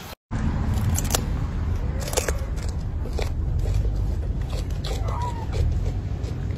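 Steady low rumble of wind on the microphone, with irregular sharp clicks and crunches over it and a short rising-then-falling chirp about five seconds in.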